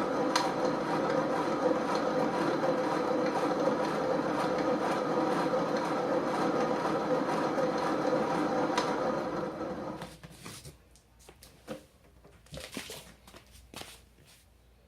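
Wonder Core exercise bike being pedaled by a seated rider: a steady mechanical rumble with an occasional click, the abnormal noise the owner is complaining of. It stops about ten seconds in, and a few scattered knocks follow.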